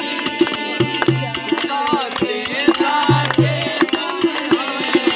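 Harmonium and dholak playing together, with deep drum strokes and a jingling percussion beat keeping steady time. A voice sings the tune over them.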